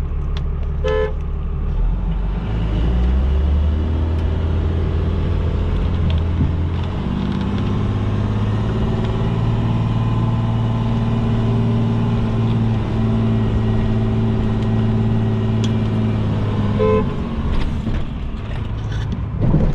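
A truck horn beeps briefly, then the truck's engine revs up and holds a steady high note under load as it is pulled out with a chain. A second short beep, the signal to stop, comes about three seconds before the end, and the engine drops back. A sharp knock follows at the very end.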